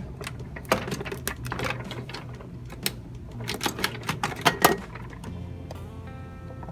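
A quick, irregular run of sharp clicks and clacks lasting about four seconds, over quiet background music.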